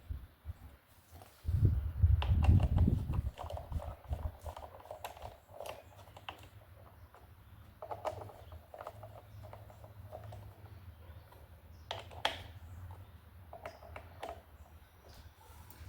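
Brake pads and caliper being worked into place by hand: scattered clicks and light knocks, with a loud low rumble lasting about two seconds near the start.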